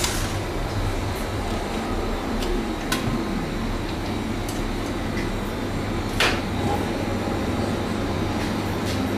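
Clinks and knocks as the stainless-steel bowl and wire whisk are taken off a KitchenAid stand mixer, scattered over a steady low hum. The loudest knock comes about six seconds in.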